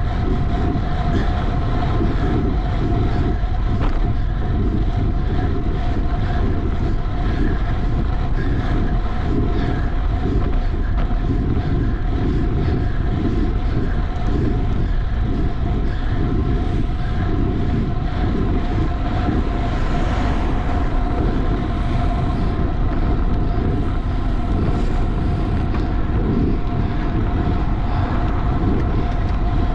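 Steady wind buffeting the microphone with road noise from a racing bicycle ridden at speed, and a steady high hum running through it.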